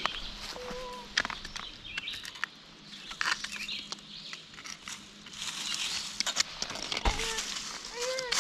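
Rustling in brush and on rocks, with scattered clicks and knocks of footsteps and handling.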